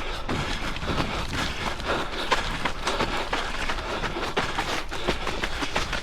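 A runner's footsteps at a steady pace, mixed with knocks and rustling from the camera carried while running.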